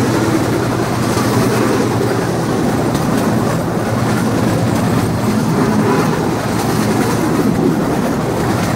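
Bamboo train (norry) running along the rails: its small lawn-mower-type engine drones steadily under the clatter of the wheels over the track.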